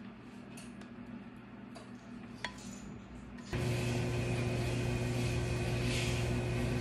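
Steady low electrical hum with hiss, like a running appliance. It is quiet at first, with a couple of faint clicks, then jumps abruptly louder about halfway through.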